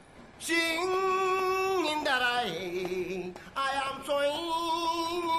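Singing: a line of a song sung in long held notes that step from one pitch to another, starting about half a second in.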